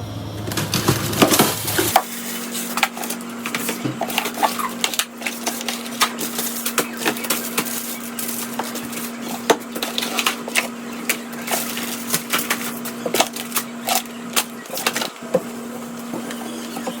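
Irregular clicks, knocks and light clatter of household objects being handled and set down, over a steady low hum that starts about two seconds in.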